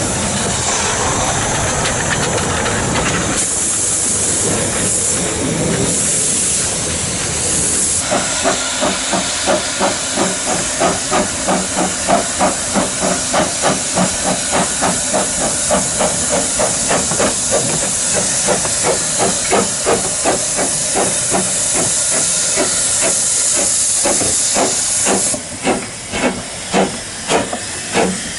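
Narrow-gauge steam locomotive hissing steam. From about eight seconds in, its exhaust chuffs start, about two beats a second, under the hiss. Near the end the hiss drops away and the chuffs stand out clearly.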